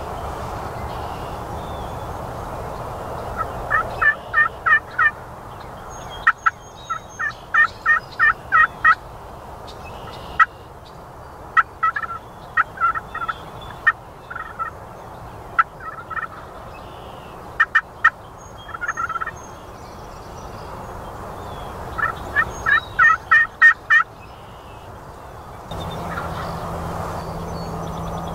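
Turkey call sounding hen yelps, very loud and close: runs of five to nine short, evenly spaced notes, about four a second, repeated several times with pauses between.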